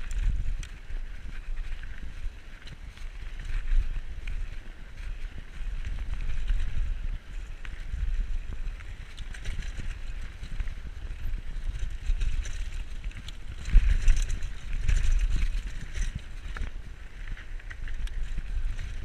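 Diamondback Recoil 29er mountain bike rolling fast along a dirt singletrack, with tyre noise on the dirt and a scatter of rattles and clicks from the bike over bumps, under low wind rumble on the microphone. It gets louder for a couple of seconds about fourteen seconds in.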